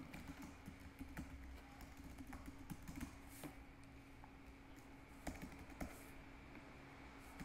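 Faint typing on a computer keyboard: a run of quick key clicks, thinning out later with a few scattered taps, over a faint steady hum.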